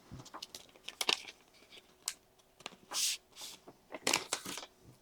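A packaging pouch being torn open and handled: irregular crinkling and tearing rustles with a few clicks, the longest rip about three seconds in and another burst near the end.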